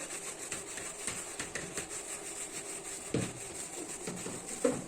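Fish frying in hot oil in a covered pan, a steady sizzle with many small irregular crackles and pops. A soft knock comes about three seconds in and another near the end.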